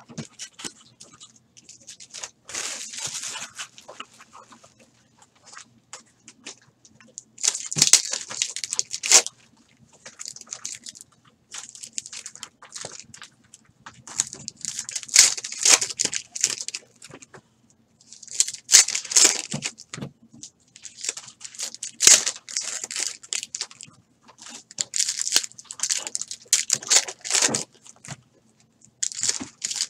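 Foil-wrapped trading-card packs crinkling and crackling as they are handled, shuffled and torn open, in irregular bursts a second or a few seconds long with short pauses between. A faint steady low hum lies underneath.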